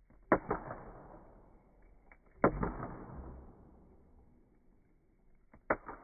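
Campfire wood popping in slow motion: three sharp cracks, about a second in, near the middle and near the end, each trailing off slowly into a low rumble.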